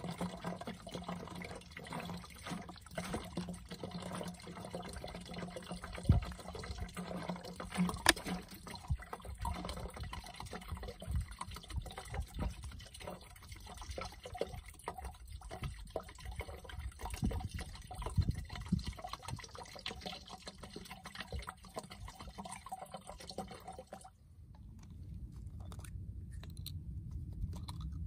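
Vinegar pouring from an upturned plastic bottle into a large plastic jug, with two sharp knocks about 6 and 8 seconds in. The pouring stops about 24 seconds in, leaving a low rumble.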